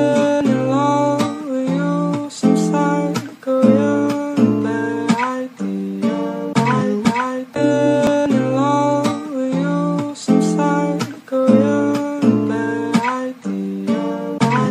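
Background music led by acoustic guitar: a run of plucked notes and strummed chords.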